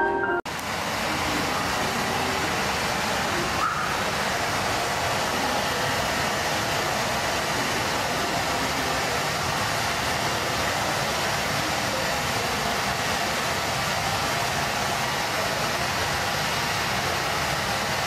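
Steady, even rushing of falling water, a waterfall sound effect, starting abruptly about half a second in where chiming mallet music cuts off.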